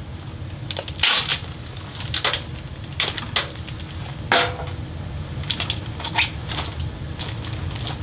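Foil-faced insulated flexible duct crinkling and crackling as it is handled and pressed onto the bathroom fan's duct collar, in a series of sharp irregular rustles over a steady low hum.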